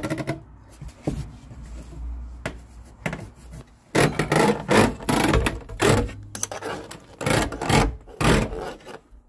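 Handling noise from a diesel heater unit being moved and set onto its wooden mount: irregular knocks, bumps and rubbing of its plastic casing, with a run of sharper thumps from about four seconds in.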